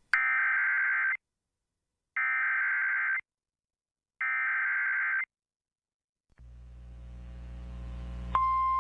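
Emergency Alert System SAME header: three electronic data bursts of about a second each, a second apart. A low hum then fades in, and near the end the steady single-pitch warning alarm tone of NOAA Weather Radio starts.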